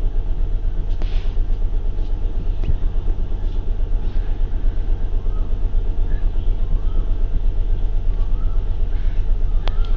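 Steady low background rumble with a fluttering beat, like a motor or traffic, with a few faint short chirps and clicks from about four seconds in.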